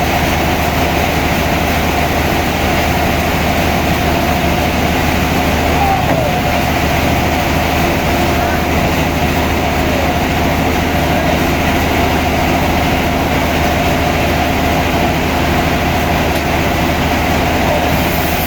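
Sawmill machinery running steadily: a constant mechanical drone with a steady whine that holds level throughout.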